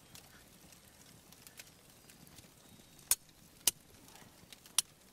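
Three sharp, isolated clicks in the second half, over a quiet background.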